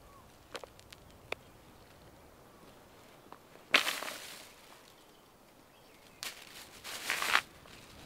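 Plastic carrier bag crinkling and rustling in two bursts, one about four seconds in and a longer one near the end, with a couple of faint ticks in the first second and a half.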